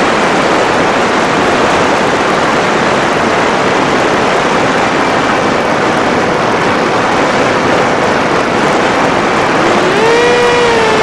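Electric motor of an FPV Skyfun RC plane throttled off, leaving a steady rushing hiss of air for most of the time, then its whine rising back up to a steady pitch about ten seconds in.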